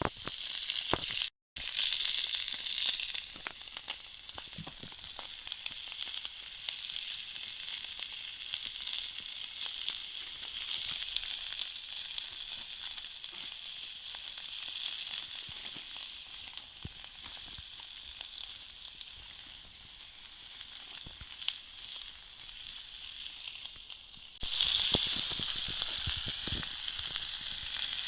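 Food frying in a pan, a steady sizzle with small crackles. It breaks off briefly about a second and a half in and gets louder about 24 seconds in.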